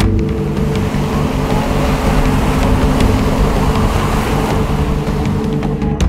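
Steady low rumble of strong wind buffeting the microphone.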